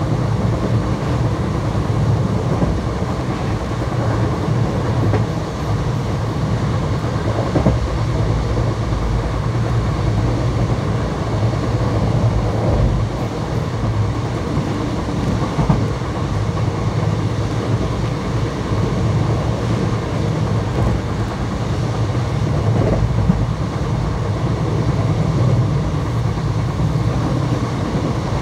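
Indian Railways ICF passenger coaches running on the track at speed: a steady rumble of wheels on rail, with a few faint clicks at rail joints.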